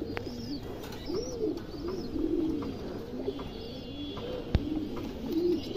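Domestic pigeons cooing, many low rising-and-falling coos overlapping one after another, with a few faint high chirps above them.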